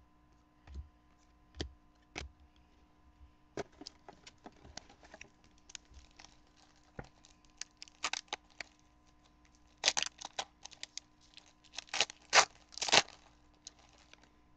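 Trading card pack wrapper being torn open and crinkled, a run of scattered crackles and clicks that grows louder in the second half.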